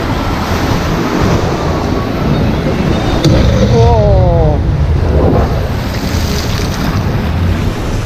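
Rushing, churning white water around a circular river-rapids raft, with wind buffeting the microphone. About halfway through, a short falling voice cuts briefly over the water.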